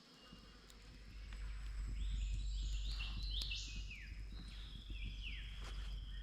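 Birds calling outdoors: a run of short, high whistled notes that drop in pitch, over a steady low rumble.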